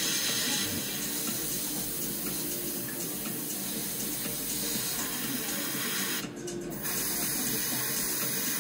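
Airbrush spraying paint, a steady hiss, broken briefly about six seconds in as the spray stops and restarts.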